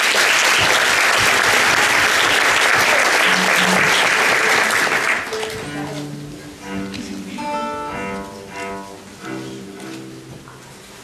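Audience applauding for about five seconds. Then, more quietly, a small acoustic string ensemble starts to play single plucked and bowed notes: guitar, lute and cello.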